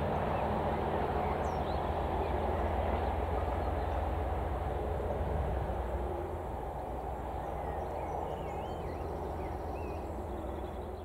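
Class 37 diesel locomotive's English Electric engine running, a low rumble that slowly fades as the train draws away down the line. Birds chirp faintly in the last few seconds.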